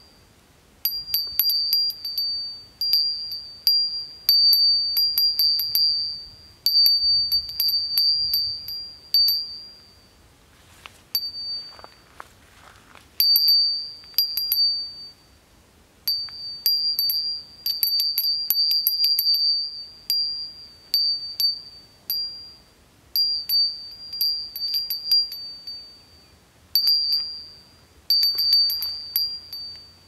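A small, high-pitched metal bell rung over and over in clusters of quick strikes, each cluster ringing on and fading away before the next, with short gaps in between.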